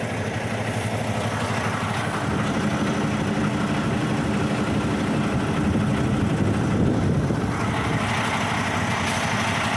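Heavy truck's diesel engine idling, a steady low hum heard from inside the cab.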